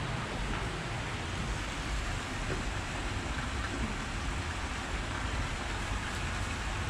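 Steady rush of falling water with a low wind rumble on the microphone.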